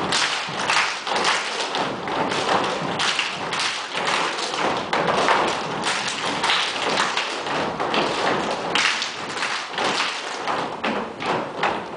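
Gumboot dancers stamping and slapping their rubber boots together on a wooden stage: a steady, fast rhythm of thuds and slaps.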